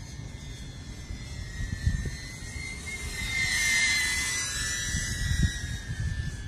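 DJI Avata FPV drone's propellers whining, swelling to a peak about four seconds in as it passes close by, then easing off. Low wind rumbles hit the microphone now and then.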